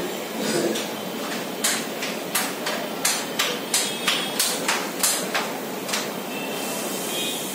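Steady hiss of rain, with a quick run of about a dozen sharp knocks, roughly three a second, that stops about six seconds in.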